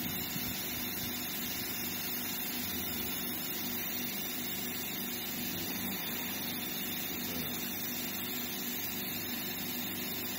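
Nakanishi EM25-5000 electric motor spindle with NR-311 attachment running steadily at speed on a test run: an even hum over a steady hiss.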